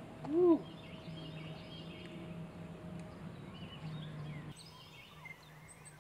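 Outdoor ambience by a pond: birds singing faintly in the background over a steady low hum. Just after the start comes one short, loud low call that rises and then falls in pitch.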